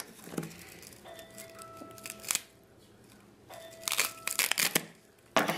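Plastic blister packaging crinkling and crackling as it is handled and pulled at, in sharp bursts with a dense cluster near the end. A faint thin squeak is held twice in between.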